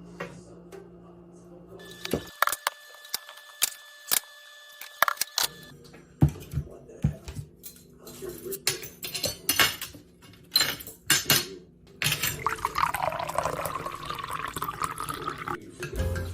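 Kitchen handling sounds: glassware and dishes clinking and knocking several times, then liquid pouring for a few seconds starting about twelve seconds in.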